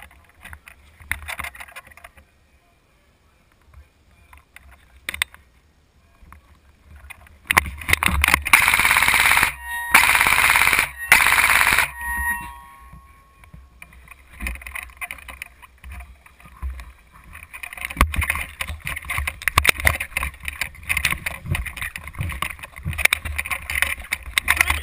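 Airsoft electric rifle firing three full-auto bursts in quick succession about halfway through, the first about two seconds long and the next two about a second each. A busy clatter of noise follows through the second half.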